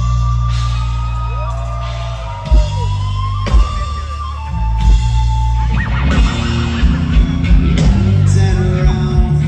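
Rock band playing live: a held, high note that steps in pitch rides over heavy bass and drum kit hits, and the playing gets fuller and busier about six seconds in.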